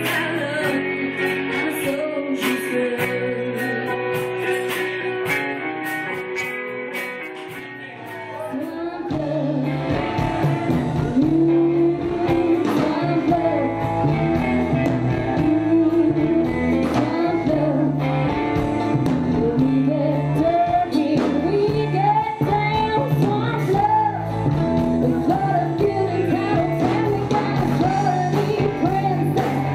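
Live band music: a woman singing lead over acoustic and electric guitar. About eight seconds in, one passage dies away and a louder one with a strong bass line comes in.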